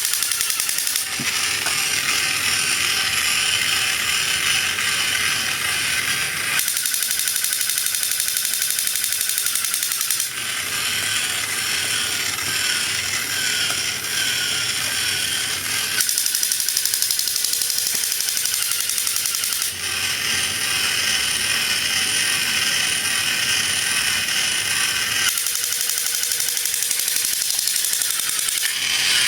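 Dense ratcheting and clicking of handled plastic, typical of toy figures and their packaging being worked, in sections that change sound every few seconds.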